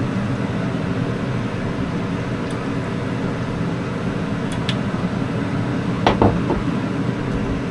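Kitchen range hood extractor fan running steadily with a low hum, with two short sharp clinks about four and a half and six seconds in.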